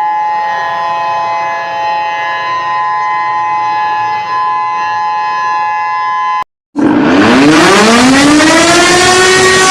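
A steady alarm of several held tones sounding together, which cuts off about six and a half seconds in. After a brief silence, a civil-defense siren winds up from a low pitch and levels off into a steady wail.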